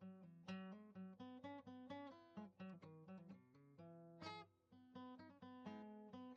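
Quiet background music: acoustic guitar picking a melody, several plucked notes a second.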